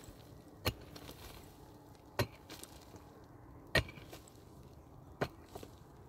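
A steady series of single strikes: four sharp impacts about one and a half seconds apart.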